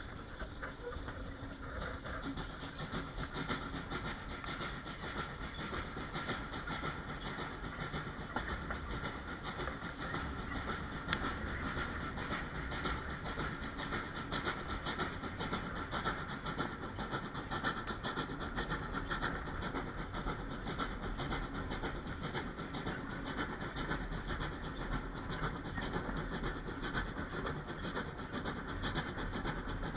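Steam-hauled passenger train on the move behind a GWR 5700 class pannier tank, heard from an open carriage window: a steady rumble and rattle of the coaches on the track, with the locomotive working up a gradient.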